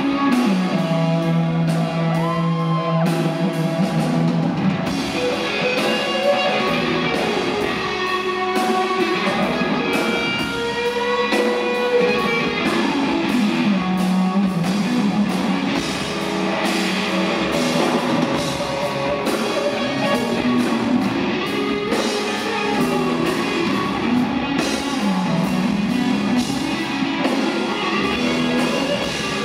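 Live rock band playing, an electric guitar, likely a Firebird-style, leading with sustained and bending notes over drums, heard from the audience in a concert hall.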